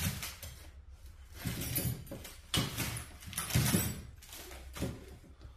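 Handling noises from a tire plug kit's plastic packaging and tools being picked up and sorted: about five short, irregular scrapes and knocks.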